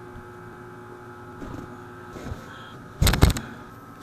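Chiropractic adjustment on a patient lying down: a quick cluster of several sharp cracks and knocks about three seconds in, as the thrust is delivered.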